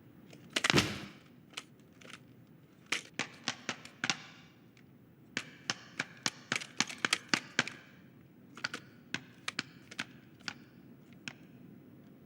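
Foley sound effects of hard toy figures in a scuffle: a loud clatter about a second in, then quick series of sharp clicks and knocks, densest in a fast run around the middle and thinning out toward the end.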